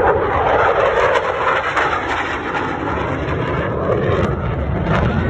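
F-16 fighter jet flying past, its jet engine a loud, steady roar.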